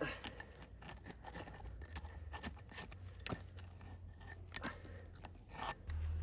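Scattered light scrapes and clicks of a metal tool, clearing away the last bits of slag after a metal pour. A low rumble swells near the end.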